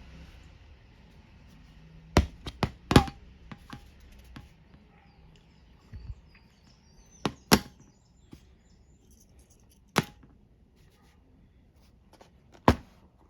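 Sharp clicks and knocks from hard objects being handled: a quick cluster of about five around two to three seconds in, then single ones every two to three seconds.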